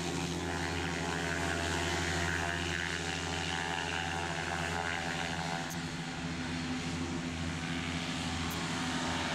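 Paramotor engine and propeller running at high power for the takeoff run, a steady drone heard from a distance.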